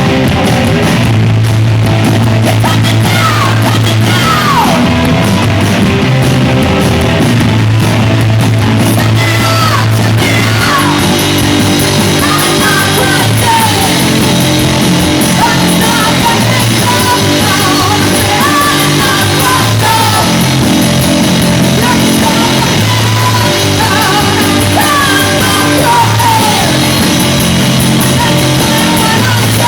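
Punk rock band playing live, loud: distorted electric guitar and bass over drums, with a voice singing and shouting over them.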